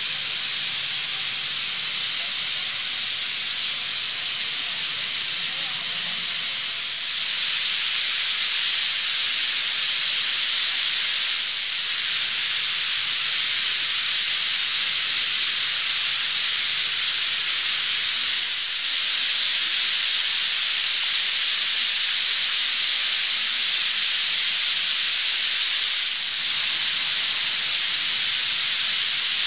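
Massed calling of a huge winter roost of bramblings: thousands of birds chattering at once, merging into one dense, steady wash of sound. It grows a little louder about seven seconds in and again near twenty seconds.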